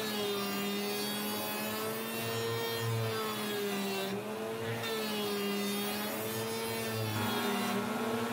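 Table-mounted router running, cutting the edge of a 3/4-inch MDF panel that is fed past the bit. A steady whine whose pitch dips and rises slowly as the cut goes on, with a change in tone about seven seconds in.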